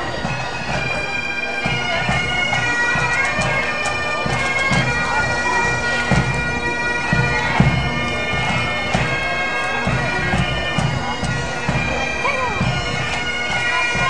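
Bagpipes playing a tune over their steady drone, with regular low thumps beneath.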